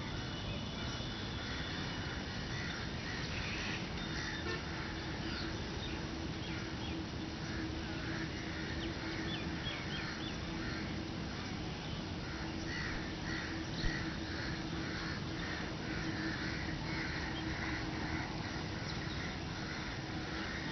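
Birds calling over and over in short, harsh calls, several a second and thickest in the second half, over a faint steady hum and background noise.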